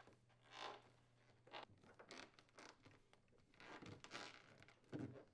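Faint, irregular rubbing and scraping of a new rubber freezer door gasket as it is pressed by hand into the channel of the plastic door liner.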